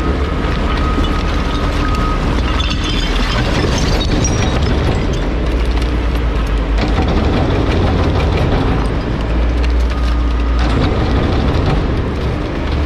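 Garbage truck compactor crushing a load of wooden furniture and a mattress: wood cracking and splintering over the steady drone of the truck's engine and hydraulic packer.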